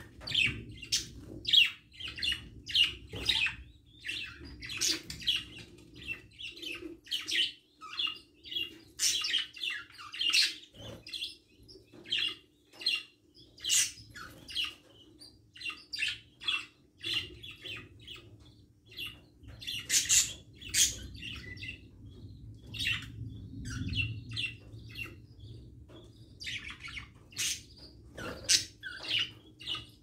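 Budgerigars chirping and chattering: quick, irregular high chirps and short squawks, several a second, over a faint steady hum.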